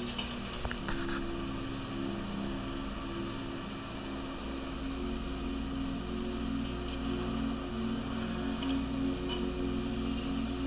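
Heavy demolition machinery at work: a Komatsu PC1250LC excavator with its hydraulic breaker on broken concrete, heard as a steady, low engine drone with a few faint clicks near the start.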